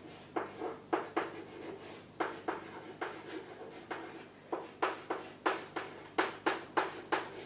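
Chalk writing Chinese characters on a chalkboard: a quick series of short scratching, tapping strokes, about three a second, with brief pauses between characters.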